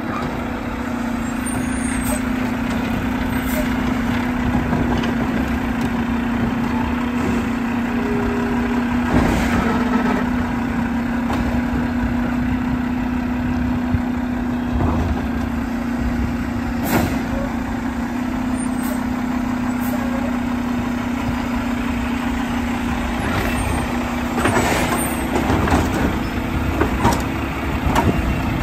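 Split-body garbage truck's diesel engine running with a steady hum as the truck pulls up, with scattered sharp knocks and clanks. Near the end the clanks bunch together as the automated side arm grabs and lifts a trash cart.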